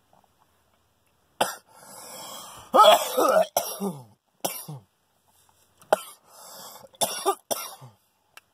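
A man coughing in a string of about seven to eight fits, the loudest cluster about three seconds in, after taking a hit of cannabis from a glass hand pipe.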